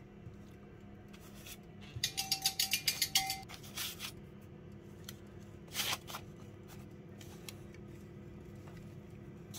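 Baking paper crinkling and rustling as cut scone-dough rounds are set down on a parchment-lined tray. A quick rattling run of scratchy crinkles comes about two seconds in, then a couple of single rustles, over a faint steady room hum.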